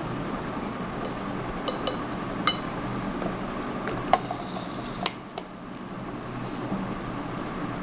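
About six sharp clinks and knocks of kitchenware, a spatula and a plastic measuring cup against a glass mixing bowl, the loudest a little past four seconds in, over a steady background hum.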